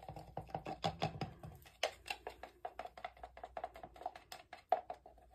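Quick, irregular light clicks and taps, several a second, from a stick stirring paint in a plastic cup.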